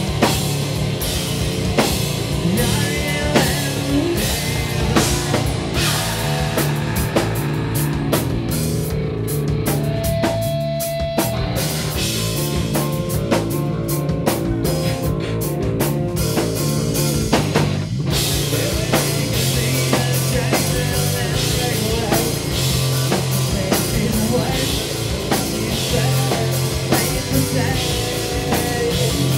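Live rock band playing loudly: distorted electric guitar, drum kit and a sung vocal. The drums thin out from about eight seconds in, with a single held note around ten seconds, and the full band crashes back in at about eighteen seconds.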